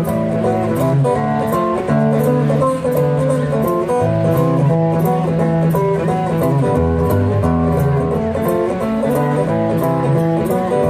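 Acoustic guitar playing a blues riff, plucked notes and chords over a steady beat.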